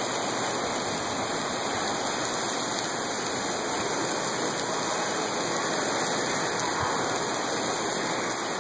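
Heavy rain mixed with hail falling on the asphalt of a parking lot, a steady, dense hiss without letup.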